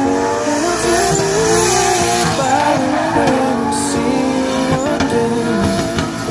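Drift car sliding in tight donuts, tyres squealing and engine revving.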